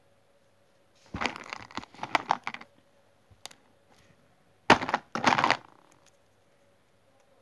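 Handling noise on the phone's microphone: fingers and small doll clothes rubbing and scraping close to it in two crackly bursts, one about a second in and another about five seconds in.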